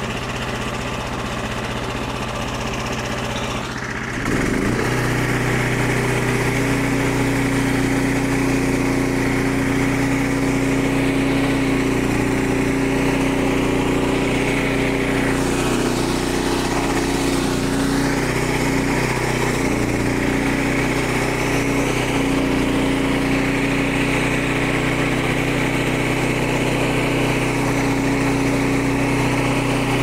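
Frontier OS23 portable bandsaw mill's small gasoline engine running. About four seconds in it steps up to a louder, higher speed and then runs steadily as the band blade cuts through a log.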